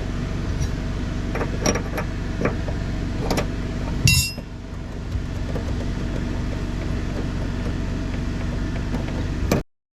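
Scattered metal clicks and knocks from hands and tools working the fuel tank free, over a steady mechanical hum. A loud metallic clang with a ringing tail comes about four seconds in. The sound cuts off abruptly just before the end.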